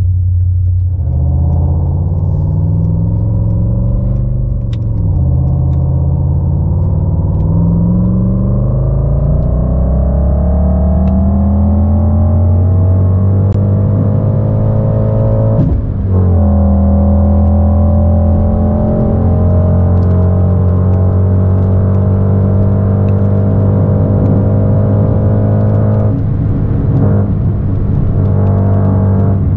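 Simulated Mercedes-AMG GT 63 S twin-turbo V8 engine and exhaust sound from an OBD2-driven car-sound app, rising and falling with the real car's revs. Pops and bangs are switched off in eco mode. The revs climb over the first dozen seconds with a couple of dips like gear changes, break briefly about halfway through, then hold a steady drone at cruise.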